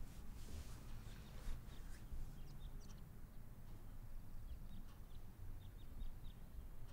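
Quiet room tone with soft rustles and a scattering of faint, short, high chirps.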